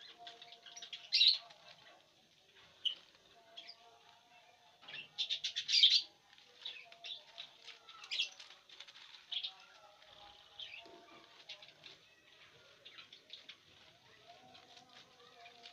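Lovebirds chirping in short, sharp, high calls, in scattered bursts with a loud cluster about five to six seconds in, along with the dry rustle of corn husks as they pick at them.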